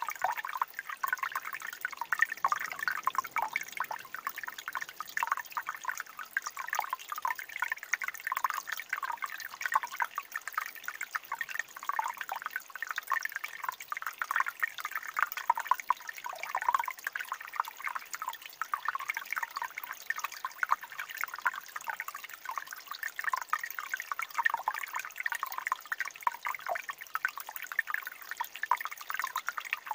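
Fresh water trickling and gurgling over rocks in a small mountain stream: a steady, dense patter of bubbling drips and little splashes.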